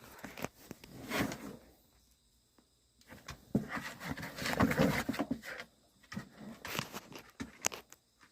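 A puppy tugging and shaking at a person's jeans and foot: scuffling, denim rustling and small clicks in three bursts with quiet gaps between them.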